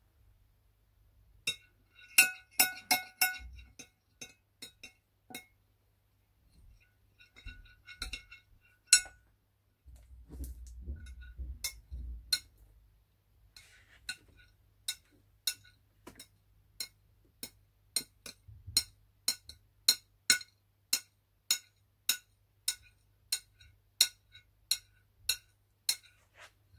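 A spoon stirring slime in a bowl, clinking against its side. There are a few quick clusters of clinks and a stretch of scraping about ten seconds in, then the stirring settles into a steady clink roughly every two-thirds of a second.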